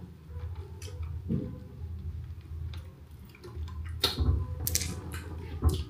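Ripe soursop being eaten by hand: soft wet clicks, squishes and mouth smacks as the white pulp is pulled apart and eaten, scattered and loudest about four seconds in, over a low steady hum.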